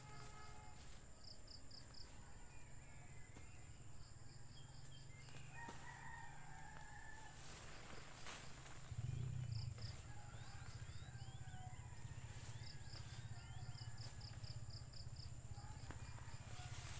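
Rooster crowing faintly, about twice, over small birds' short repeated chirps, with a steady low rumble and a few sharp knocks about halfway through.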